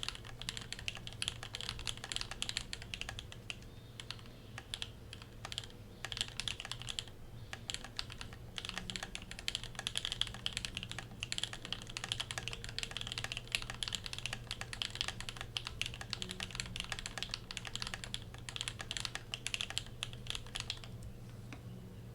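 Fast typing on a custom mechanical keyboard with lubed NK Silk Olivia linear switches on an aluminium plate and GMK keycaps: a dense stream of key clacks with a few brief pauses. The typing stops about a second before the end.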